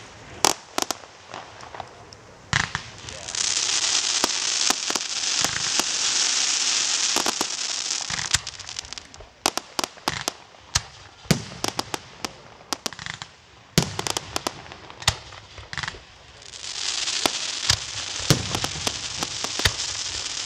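Fireworks display: aerial shells bursting in a rapid string of sharp bangs, with two long stretches of dense crackling hiss, about three seconds in and again near the end.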